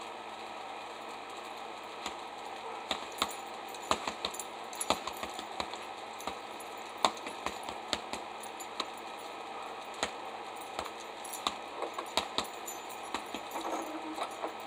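Punches landing on an Everlast heavy bag in an irregular run of sharp slaps, starting about two seconds in and sometimes coming in quick flurries, with metallic jingling as the bag's hanging chain and the puncher's keys swing.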